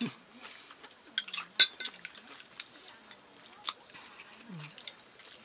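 Chopsticks clicking against a ceramic bowl, with chewing in between. The sharpest click comes about one and a half seconds in.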